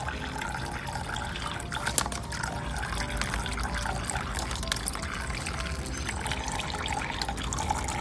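A conure bathing in a plastic tub under a thin running stream of water: a steady trickle with small splashes from the bird's wings and body, and one sharper splash about two seconds in.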